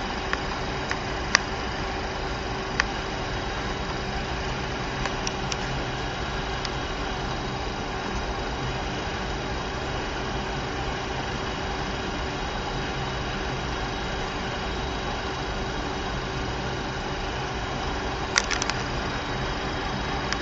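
Steady cockpit background noise of a jet in flight on approach, an even rush of air and engine noise with a faint constant hum. A few brief clicks stand out, a small cluster of them a couple of seconds before the end.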